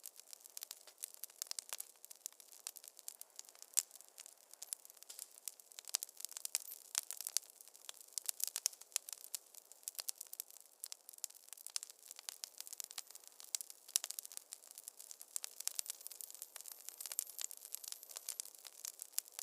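Wood fire crackling in a fireplace: a steady, irregular stream of sharp snaps and pops over a faint hiss.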